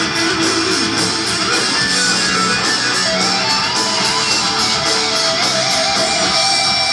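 Heavy metal music with electric guitars and a steady beat.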